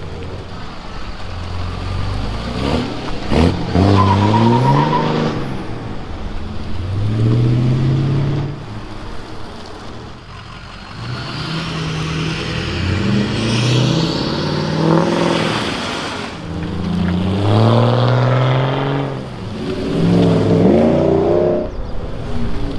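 Pickup truck engines accelerating through the gears, the pitch rising again and again and dropping back at each shift.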